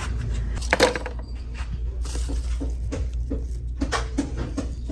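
Light knocks and clatter of small items being handled, with one sharper knock about a second in, over a steady low hum.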